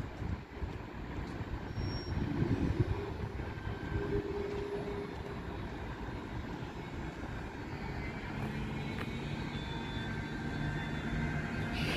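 Container freight train hauled by an electric locomotive approaching and rolling past on the rails. A low rumble and hum grow steadily louder through the second half, and the wheel noise brightens near the end as the wagons pass close.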